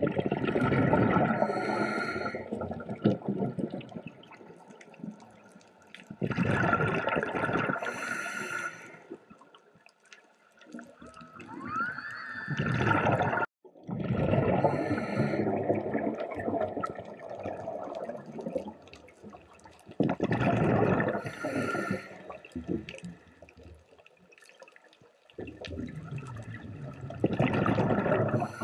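Scuba regulator breathing underwater: a rushing, bubbling burst of exhaled air every few seconds, with quiet gaps between breaths. A short rising whistle comes about twelve seconds in.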